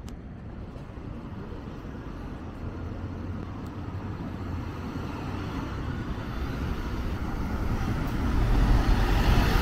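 Road traffic passing on a city street: the engines and tyres of a bus and cars, growing steadily louder and loudest near the end as a vehicle passes close by.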